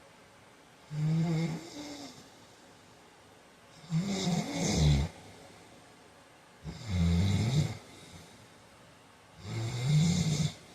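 A man snoring in his sleep. Four snores about a second long each, coming roughly every three seconds with quiet gaps between.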